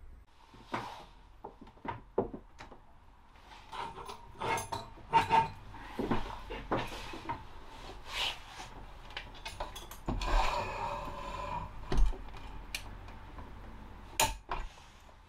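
Clicks, knocks and rattles as telescopic support props with ratchet clamp jaws are released and lifted away from a wooden sink cover. There is a longer scraping rub about ten seconds in, and a few sharp knocks.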